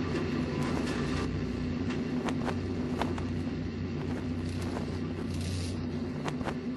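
Steady low mechanical rumble with a constant hum and scattered short clicks.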